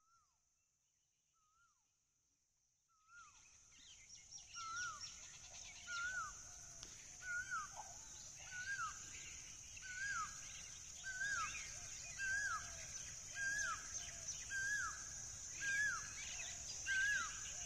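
Birds calling at dusk: one bird repeats a short rising-then-falling whistled note about once a second, other birds chirp over it, and a steady high insect buzz runs underneath. It all comes in suddenly about three seconds in, after near silence.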